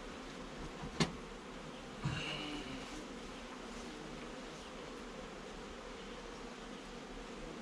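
Honey bees buzzing steadily around an open hive. A single sharp knock sounds about a second in, and a brief scrape a second later.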